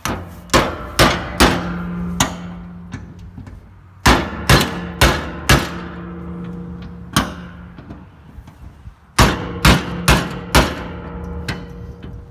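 Hammer blows on the end of a flathead screwdriver set in a screw head on an old truck's steel fuel tank, striking it like a manual impact driver to break a rusty screw loose. The blows come in three bursts of four or five, each leaving the tank ringing with a low hum.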